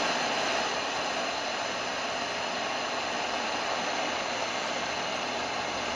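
Portable radio's speaker putting out a steady FM static hiss while tuned between stations, with no station coming in.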